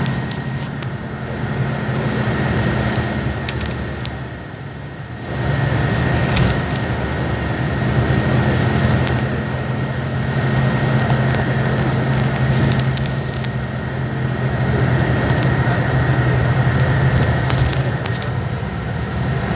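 Bus engine and road noise heard from inside the passenger cabin: a steady low drone that eases off about four seconds in and comes back stronger a second later, with a few brief clicks.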